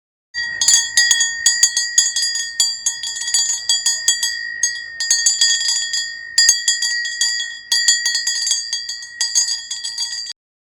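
Chinese bronze hand bell with a carved dragon-head handle, shaken so that its clapper strikes the bell many times in quick, uneven succession. It rings one steady high note and cuts off suddenly near the end.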